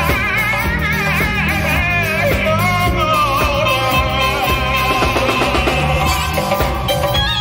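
Live Uzbek band music: a drum kit and a doira frame drum keep the beat under keyboard and a singer's wavering, ornamented melody.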